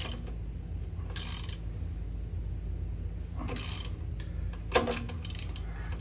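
Hand tools working on metal while mounting bolts are tightened: two short metallic rasps a couple of seconds apart, then a quick run of clicks and one sharp metal clank near the end, over a steady low hum.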